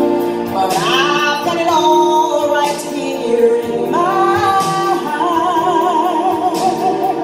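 A woman singing solo into a handheld microphone over sustained instrumental accompaniment, her voice gliding between notes and then holding a long note with wide vibrato in the second half.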